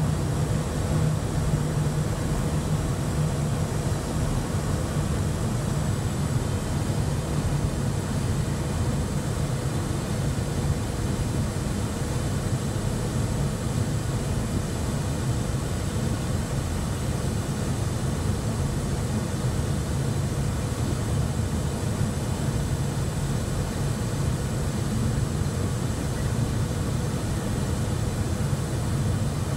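Steady cabin noise inside the cockpit of a Cessna Citation Bravo descending on approach: a deep, even rush of airflow and its two Pratt & Whitney Canada PW530A turbofans, with a thin high whine over it.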